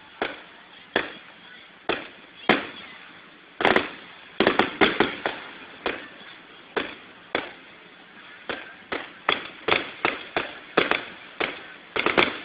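Aerial fireworks going off in an irregular string of sharp bangs, each with a short echoing tail. The bangs come thick and fast in a cluster about four to five seconds in and again near the end.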